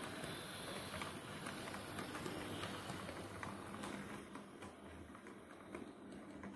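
HO-scale model trains running on the track: a steady motor hum with rapid light clicking of the wheels over the rail joints.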